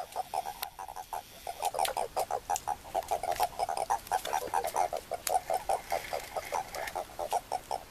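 Eastern Japanese common toads croaking at a spawning gathering: a steady run of short, pulsed calls, several a second, with scattered faint clicks.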